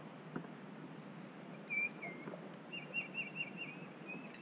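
A songbird singing: a single slurred note, then a quick run of about six looping notes, over a faint steady background hiss.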